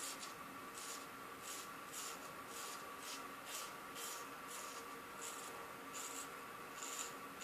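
Wilkinson Sword Empire safety razor's hollow-ground blade scraping through lathered stubble in short, faint, raspy strokes, about two a second.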